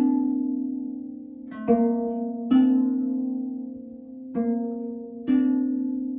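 Slow, gentle piano music: a few soft notes and chords struck about once a second, each left to ring and fade before the next.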